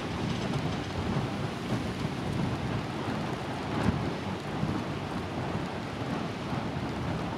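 Wind buffeting the camera microphone: an irregular low rumble that rises and falls in gusts, with one stronger gust about four seconds in.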